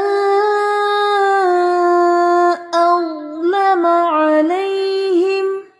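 A woman's voice reciting a Quranic verse in a slow, melodic tajweed chant. She holds one long, nearly level note for the first two and a half seconds, breaks briefly, then sings shorter notes that rise and fall before stopping near the end.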